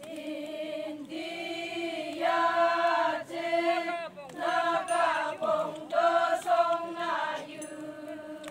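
A group of women singing a Konyak Naga folk chant together, unaccompanied. They hold long notes in short phrases, with brief breaks and slight glides where each phrase ends.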